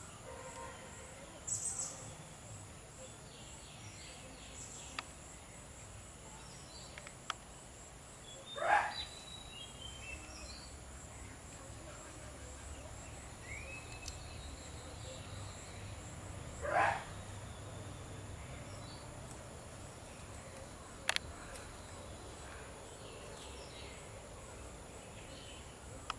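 Outdoor ambience with a steady high insect buzz and scattered short bird chirps. Two louder short calls stand out, one about nine seconds in and one about seventeen seconds in, with a sharp click a few seconds before the end.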